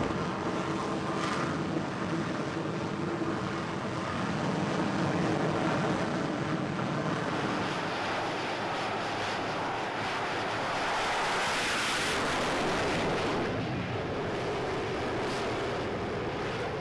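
Jet engine of an X-47B carrier drone running at the catapult: a steady jet roar with a hum under it, swelling louder and hissier partway through as it runs up to launch power.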